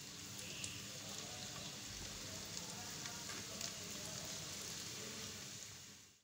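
Chicken spring rolls frying in hot oil: a steady sizzle with small crackles, fading out near the end.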